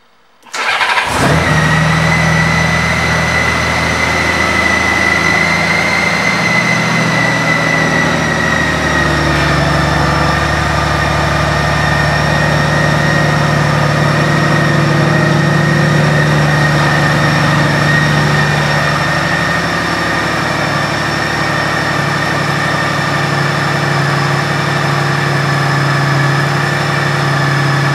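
2008 Honda Gold Wing's flat-six engine starting about half a second in and settling into a steady idle, with a steady high whine over the engine note; the idle eases slightly lower about ten seconds in.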